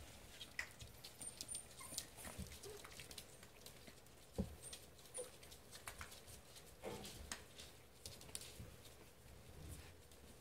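Seven-week-old pocket beagle puppies' claws clicking and pattering on a hardwood floor as they play, with scattered light taps and a soft thump a little over four seconds in.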